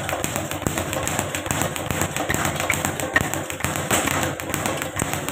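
Speed bag rattling against its wooden rebound platform under rapid punches from wrapped fists: a fast, even drumming of taps.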